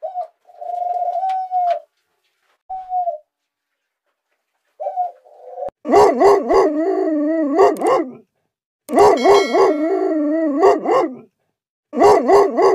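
A dog gives a few short high whines, then howls three times, each a long wavering howl of about two seconds.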